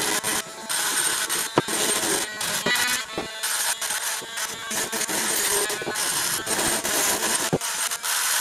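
Cordless rotary tool grinding a steel hammer head with a small abrasive bit, a continuous gritty, rasping grind with a few brief knocks and dips as the bit is moved across the metal.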